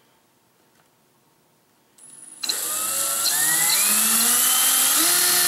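Cordless drill starting up about two seconds in, its motor whine rising in pitch as it spins up, then running steadily. It is boring a hole through a 2-inch PVC female adapter for a set screw.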